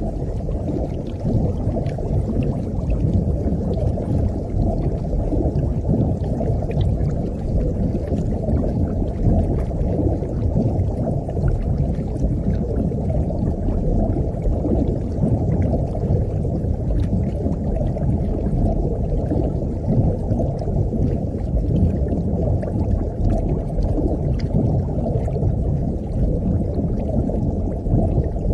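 Underwater ambience heard through a submerged camera: a steady, muffled low wash of water noise with faint scattered ticks and clicks.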